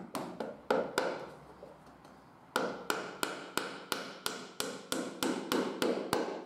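Hammer tapping a small metal pin into the edge of a dovetailed wooden box. A few quick taps are followed by a pause of about a second and a half, then a steady run of about a dozen light strikes, roughly three a second.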